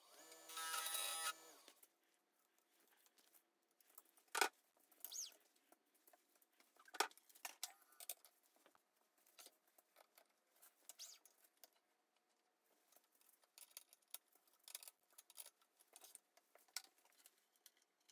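Laguna 1836 wood lathe running for about a second and then stopping, followed by faint scattered clicks and knocks of the burl-and-resin blank being taken out of the four-jaw chuck and remounted, two of the knocks louder than the rest.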